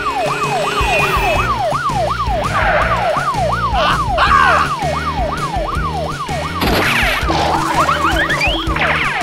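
Police siren wailing quickly up and down, a little over twice a second, over background music. A short rising whistle comes near the end.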